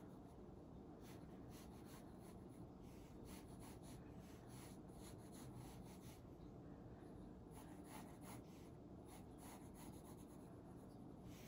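Faint scratching of a 2H graphite drawing pencil on sketchbook paper: a string of short, light strokes.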